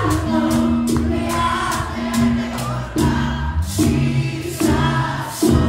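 Live bachata band playing, with several male voices singing together over a bass line and a steady high percussion beat.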